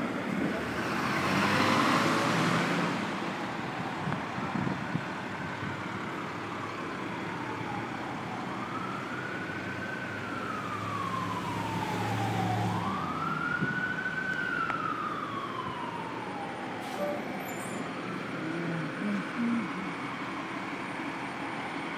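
Emergency vehicle siren wailing, its pitch sweeping slowly up and down several times, over steady city street traffic noise. About two seconds in, a louder rush of broad street noise swells and fades.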